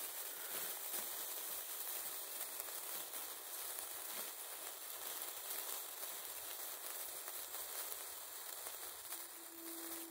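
Electric gold sparkler on a bamboo stick burning, giving off a steady fizzing crackle of sparks.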